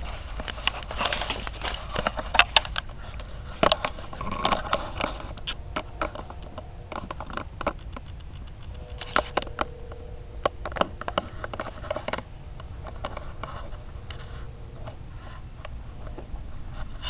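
Handling noise from a handheld phone camera: irregular scrapes, rubs and sharp clicks as it is moved and repositioned, busiest in the first few seconds, over a low steady rumble.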